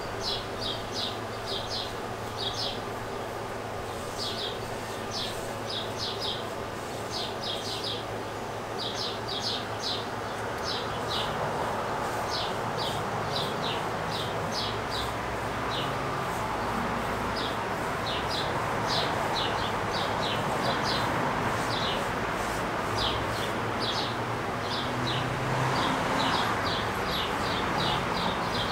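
Small birds chirping in quick runs of short high notes, over a steady background hiss that grows a little louder about a third of the way in.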